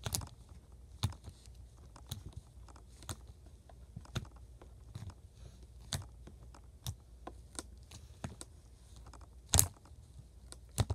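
Flarp noise putty softened with hand sanitizer being poked and squished by hand, making small sticky clicks and pops about once a second, the loudest a little before the end.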